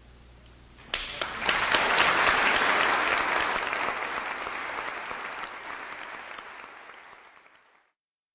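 The last piano chord fades away, then recital audience applause breaks out about a second in, swells, and slowly dies down before cutting off abruptly near the end.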